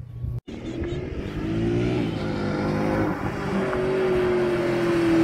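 Mercedes-Benz C63 AMG's 6.2-litre naturally aspirated M156 V8 through a full straight-through stainless exhaust, pulling steadily and growing louder as the car drives toward the listener. The note eases slightly lower near the end, and the sound drops out briefly about half a second in.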